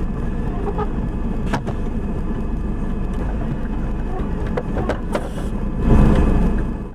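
Steady engine and road rumble heard from inside a moving vehicle's cabin, with a few light clicks and knocks, swelling louder about six seconds in.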